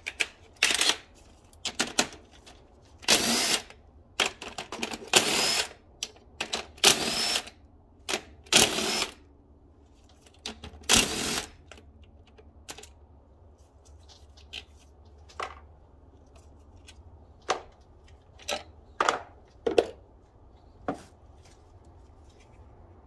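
Cordless power tool spinning out bolts on the engine's upper intake, in about seven short bursts over the first dozen seconds, then a few light clicks and clinks of tools and parts.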